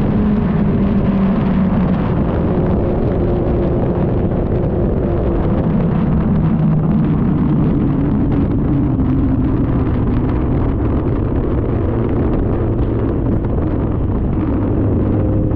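Wind buffeting and rushing over a GoPro Hero 9's microphone while riding, a steady loud rumble. Under it, an engine note slowly shifts in pitch.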